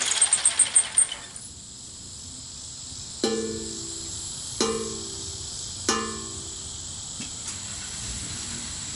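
Steel tongue drum made from a 20-pound propane tank: a run of quick light ticks in the first second, then the same low note struck three times about 1.3 s apart, each ringing with metallic overtones and fading away.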